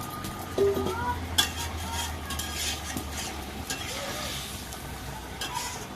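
A spoon stirring and scraping in a pot of simmering chicken curry, with knocks against the pot and a sizzling hiss from the gravy. A low steady hum runs under the first few seconds.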